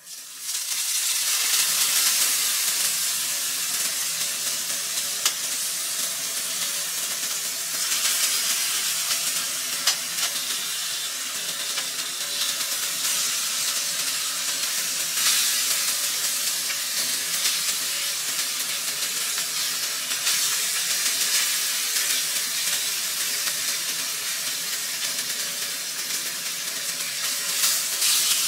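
Whole fish sizzling in hot oil in a frying pan, a dense steady hiss that starts suddenly, with occasional small clicks and scrapes from the spatula turning the fish.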